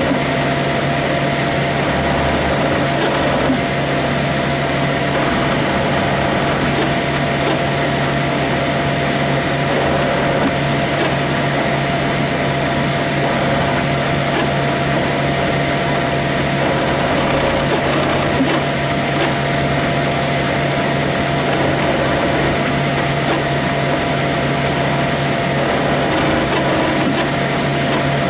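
Flashforge Dreamer 3D printer printing: its cooling fans and stepper motors make a steady mechanical hum with a few fixed tones.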